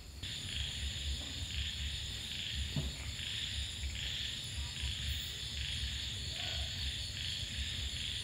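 A steady high-pitched chorus of calling wild animals that swells and eases every second or so, over a low rumble.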